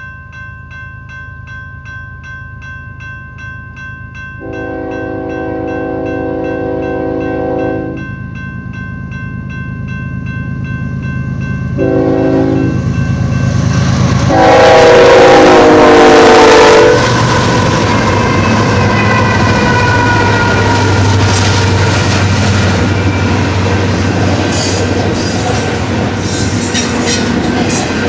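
Railroad grade-crossing bell ringing steadily while an approaching Union Pacific GE diesel locomotive blows its horn for the crossing: a long blast, a short one, then a final long blast that is the loudest. The lead locomotives then pass with a heavy steady rumble, and double-stack cars follow with wheels clicking over the rail joints near the end.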